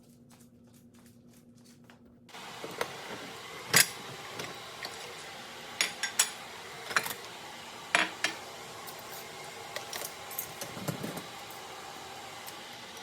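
Scattered sharp clicks and knocks of hard objects being handled over a steady room hum, the loudest a little under four seconds in, with a duller thump near the end.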